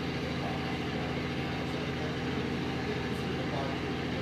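Steady low hum holding several even tones, like a running engine or generator, under a haze of outdoor noise, with a few faint distant shouts.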